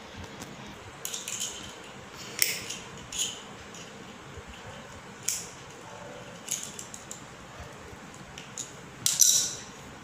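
Thin metal wire being bent and twisted with pliers around a small piece of wood: scattered sharp metallic clicks and scrapes at irregular intervals, the loudest cluster near the end.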